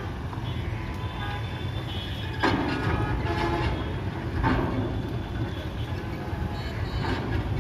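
Steady low engine rumble of vehicles driving off a ferry onto the steel pontoon ramp. Three louder rattling bursts come about two and a half, four and a half and seven seconds in.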